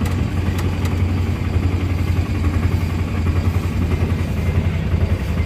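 Auto-rickshaw's single-cylinder engine running steadily while the vehicle drives, heard from inside the open passenger cabin: a low drone with a fast, even pulse.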